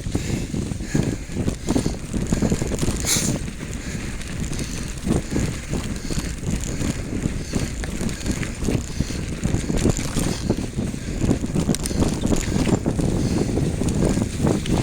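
Bicycle ridden uphill over a rough trail: continuous jolting rattle with wind buffeting the microphone, and one brief sharp high sound about three seconds in.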